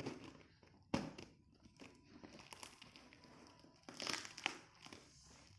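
Parcel packaging crinkling and tearing as it is unwrapped by hand. There are irregular rustles and clicks, with a sharp crackle about a second in and a busier burst around four seconds in.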